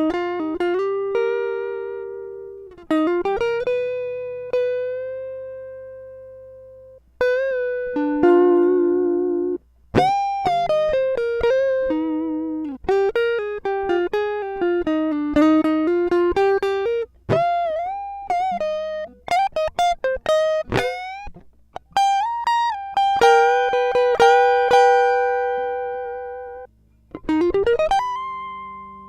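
Clean electric guitar recorded straight through a passive DI box, with no amp or effects, playing a melodic solo. Single sustained notes ring and fade, with string bends, slides and vibrato. The finger noise on the strings comes through clearly.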